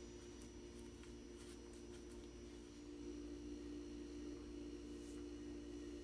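A steady low electrical hum, with faint soft strokes of a paintbrush on wooden trim.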